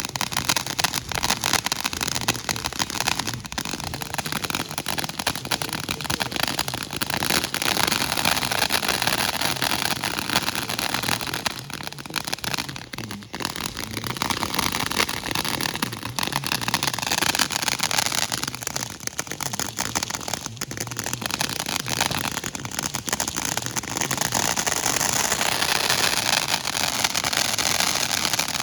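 Fireworks hissing and crackling without a break, a dense spray of sparks that swells in the second half.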